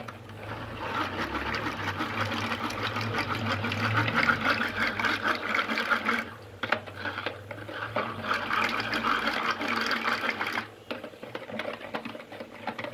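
Electric hand mixer with twin beaters running through curd and powdered sugar in a plastic bowl, whipping it to a smooth paste. It stops briefly about six seconds in, then runs again and turns quieter over the last two seconds.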